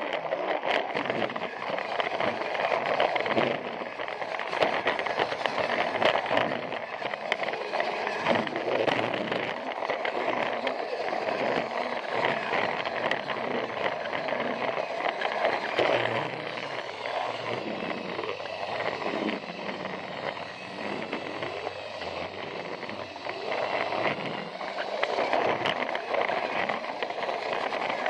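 Plarail battery-powered toy train running along plastic track, heard close up from a camera riding on it: a continuous whir of its small motor and gears with the rattle of its wheels on the track, dipping a little in loudness for a few seconds past the middle.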